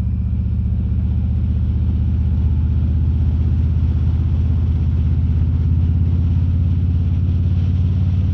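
Harley-Davidson Road King's V-twin engine running at a steady cruise, a deep even drone with rapid firing pulses and no change in pitch, picked up by a microphone inside the rider's helmet.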